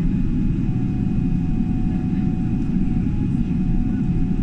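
Airliner cabin noise heard from inside the plane: a steady low rumble with faint, even engine whine tones above it, unchanging throughout.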